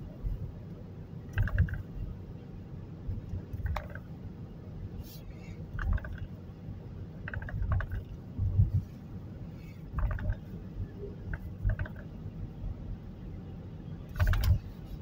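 Inside a moving car: a steady low rumble of engine and tyres, with short knocks and squeaks every second or two.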